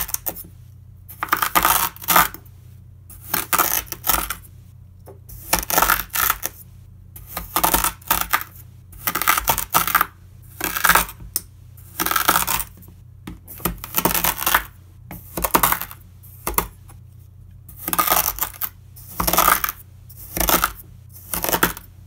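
Chef's knife pressed down through a slab of kinetic sand, each cut giving a crisp crunch. The cuts come about one a second, each lasting about half a second.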